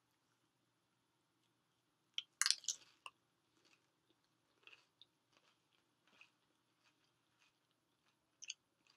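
A person eating close to the microphone: a burst of sharp, crunchy clicks from a bite about two seconds in, then softer chewing clicks spread through, and a sharp pair of clicks near the end.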